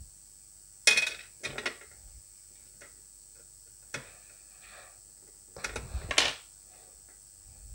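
Small metal parts of an opened rotary volume-control potentiometer being handled on a workbench: a few sharp clinks and rattles, the loudest about a second in and another cluster about six seconds in.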